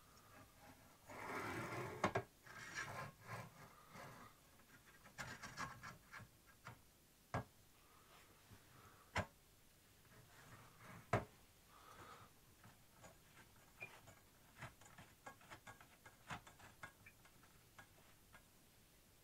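Hand assembly of a small CNC router kit's gantry, the cross slide being fitted: parts rubbing and sliding about a second in and again around five seconds, then three sharp knocks a couple of seconds apart and scattered light ticks of small metal parts being handled.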